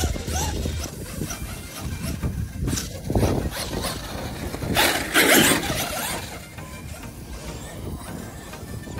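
Electric RC monster trucks running over grass, their motors and tyres on the turf, with two louder bursts about three seconds in and around five to six seconds in.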